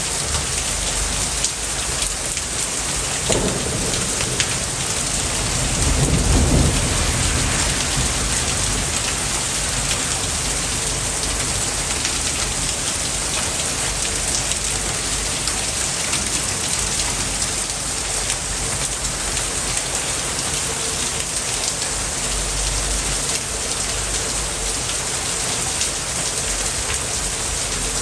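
Steady heavy rain, with rolls of thunder about three seconds in and, louder, about six seconds in.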